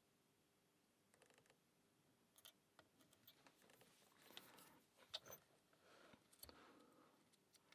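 Faint metallic clicks and short scrapes of a lock pick working the pins of a small Abus 65/20 padlock under tension, irregular and busiest in the second half.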